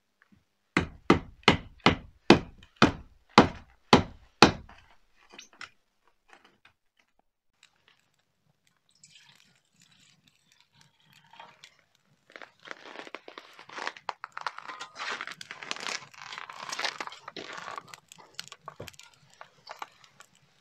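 A puukko knife being batoned through a log with a wooden stick to split firewood: about eight sharp knocks, roughly two a second, in the first few seconds. After a quiet gap, a long stretch of irregular crackling from a wood fire under a cooking grill.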